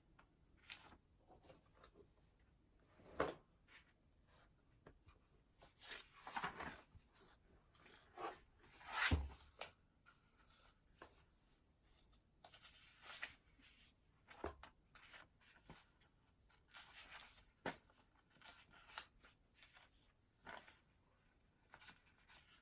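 Quiet desk sounds while studying: spells of pen or pencil scratching on paper and handling of paper, with a few sharp taps, the loudest about nine seconds in.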